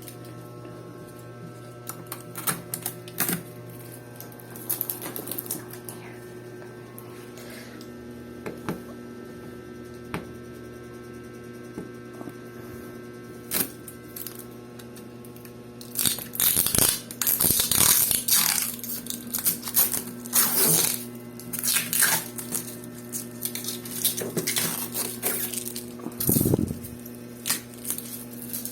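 Packaging handled during a refrigerator unboxing: scattered clicks and knocks, then from about halfway on a busy stretch of rustling and scraping, over a steady low hum.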